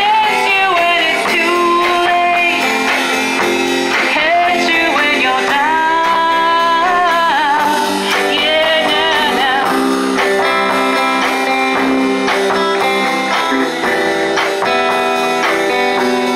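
Live band: a woman singing into a microphone, holding notes with vibrato, over strummed electric guitars.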